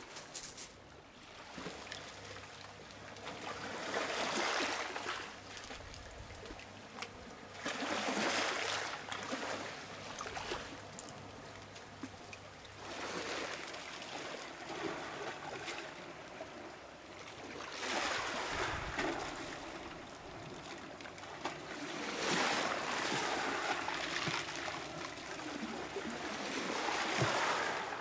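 Small sea waves washing up onto a pebble shore and drawing back, a swell of surf about every four to five seconds.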